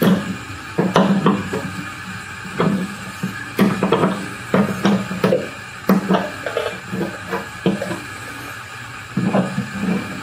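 A 7/16 pilot-point drill bit turned by hand in a freshly drilled hole in a sidecar's metal body, scraping and clicking in short, irregular strokes as it deburrs the hole's edge.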